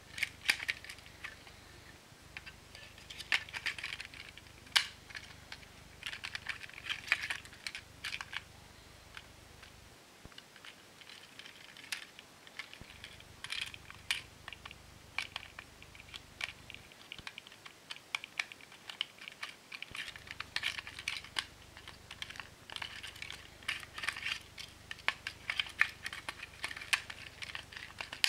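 Light plastic clicks and rattles, coming in irregular clusters, as a Plarail toy train car's plastic body, chassis and wheels are handled and worked on by hand.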